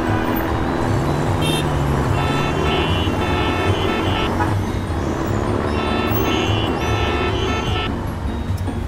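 Dubbed-in truck engine sound effect running steadily with a low rumble, over background music.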